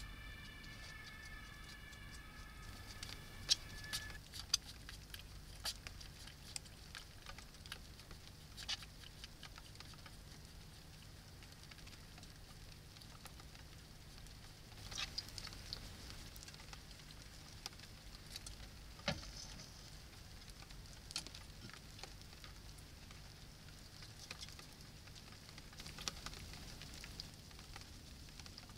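Hedgehog feeding: faint, scattered clicks and crunches of chewing and nosing about at the food, with a few sharper clicks now and then, over a low steady hum. A faint high steady tone sounds for the first four seconds or so.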